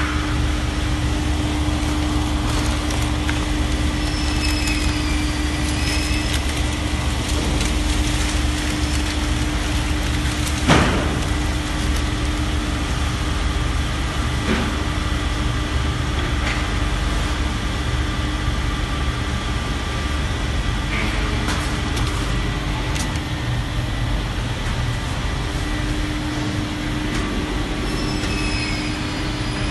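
Vacuum membrane press running through its vacuum cycle: a steady machine drone with a low hum and a steady tone, and one sharp knock about eleven seconds in.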